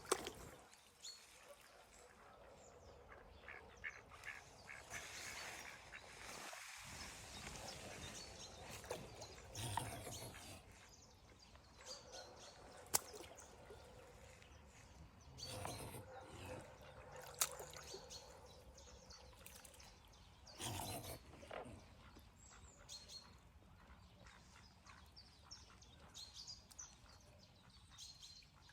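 Swans close by making occasional soft calls, faint overall, with a few sharp clicks.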